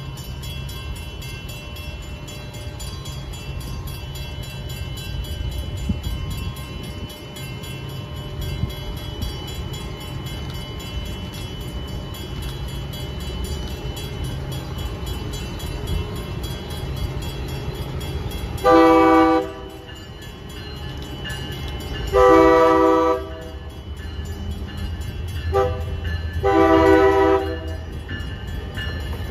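Amtrak Acela Express trainset approaching over a steady low rumble. In the last third its horn sounds four times, long, long, short, long: the standard grade-crossing signal.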